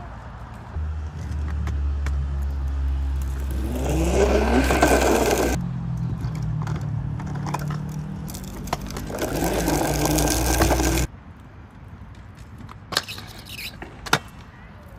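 Scooter wheels rolling and scraping on skate park concrete: a steady rumble that swells twice and stops suddenly about eleven seconds in, followed by a few sharp clicks.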